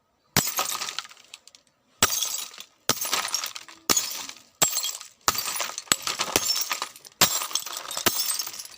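Glass smashing repeatedly: about eight sharp crashes a second or less apart, each followed by tinkling, scattering shards.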